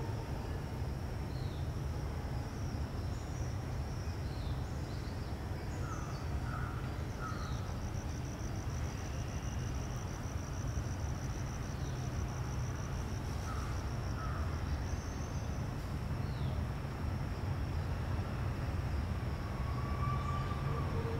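Outdoor natural ambience: a steady high-pitched insect drone that turns into a faster pulsing trill for several seconds in the middle, a few short bird chirps, and a steady low rumble underneath.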